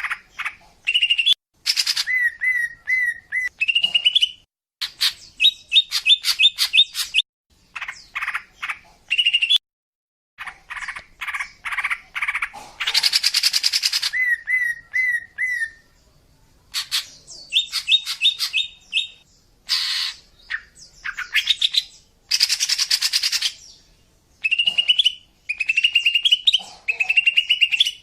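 Female green leafbird (cucak ijo) calling, the kind of call played to lure males: quick phrases of chirps and short whistled trills, with a couple of harsh rasping bursts and brief pauses between phrases.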